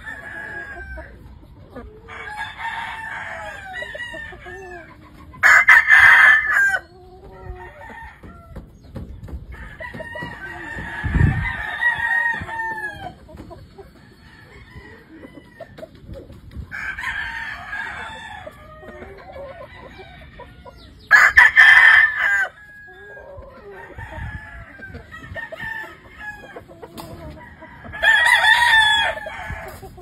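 Roosters crowing one after another, a crow every few seconds, several of them loud and close.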